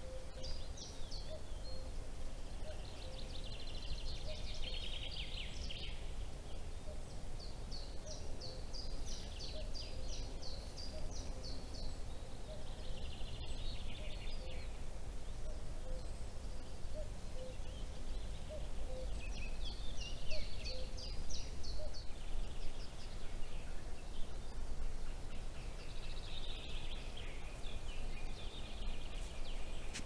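Common chaffinch singing: five repeated phrases, each a quick run of notes falling in pitch and ending in a flourish, one every six seconds or so, over steady low background noise.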